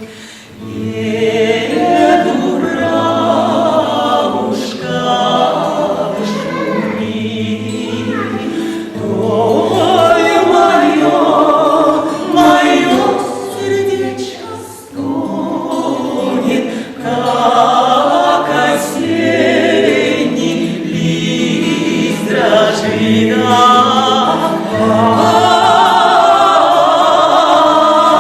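A vocal trio of two women and a man singing a Russian folk song together in harmony, the voices held with vibrato. The singing dips briefly about halfway through and then swells again.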